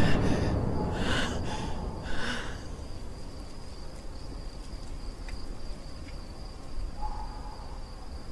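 Night ambience dominated by a cricket chirping steadily and unbroken, with two short calls about one and two seconds in. The film's music is dying away at the very start.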